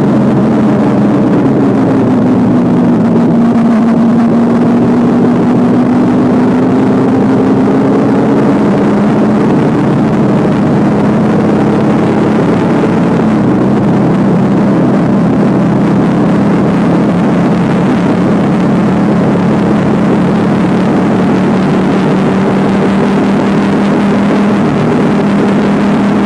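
Motorcycle engine running steadily while riding, its pitch drifting slightly with a small step about 13 seconds in.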